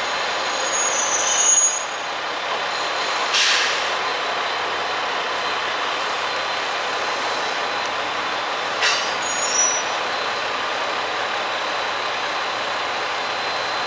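DEC700 diesel-electric railcar coming to a stop at a platform: a high brake squeal about a second in and again near the end of the stop, and two short hisses of air from the brakes, over the railcar's steady running noise.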